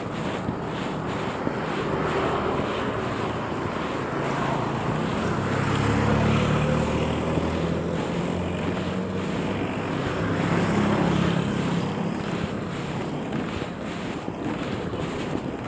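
Wind buffeting the microphone of a handlebar camera on a bicycle coasting downhill, with motorcycle engines on the road swelling as they pass about six seconds in and again around eleven seconds.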